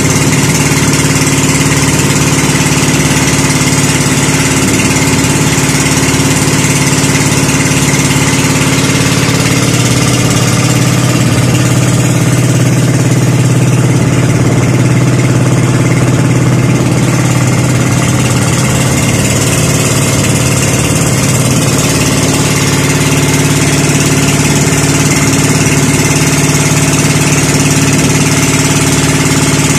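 Engine of a motorized outrigger fishing boat running steadily under way, a loud even drone that dips a little in pitch for several seconds midway.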